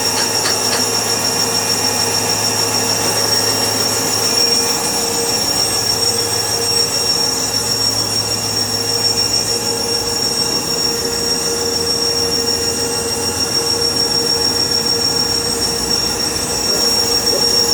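Sawmill running: a steady, loud mechanical noise with a constant high-pitched whine and a low hum, unchanging throughout.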